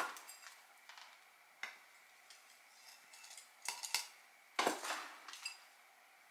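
Metal hand scoop digging into potting mix in a plastic tub and pouring soil into a planter: several short scrapes and rustles, a second or so apart.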